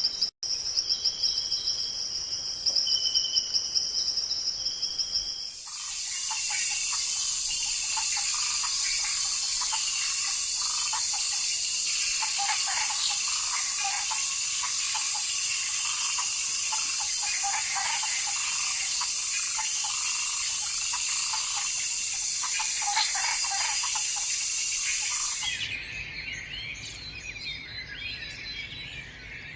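Forest ambience. A steady high insect trill with short repeated pulsing calls is cut suddenly about five seconds in by a loud, dense high insect hiss with many bird chirps through it. About three seconds before the end this stops abruptly, leaving quieter scattered bird calls.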